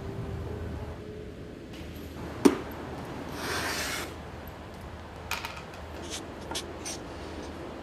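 A piano note fading out, then quiet room sound with one sharp click about two and a half seconds in and a short hiss about a second later. Near the end come a few light scratches of a felt-tip marker writing on a paper label.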